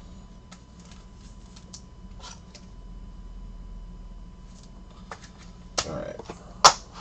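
Light clicks, taps and scrapes of trading cards and rigid plastic top loaders being handled, a card slid into a top loader. Near the end there is a short voice sound, then a sharp plastic clack, the loudest sound, as a top loader is set down on the stack.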